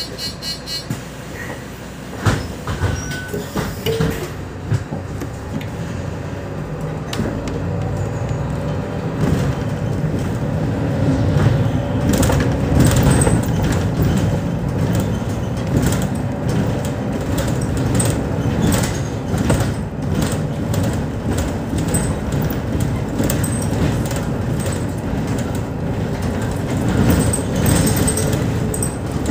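Inside a Mercedes-Benz Citaro O 530 city bus on the move: diesel engine and road rumble growing louder a few seconds in as the bus gathers speed, with frequent short knocks and rattles from the body over the road.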